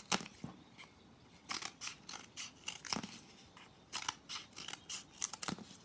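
Scissors snipping through a cardboard paper towel tube: a run of short, sharp cuts in quick clusters with brief pauses between them.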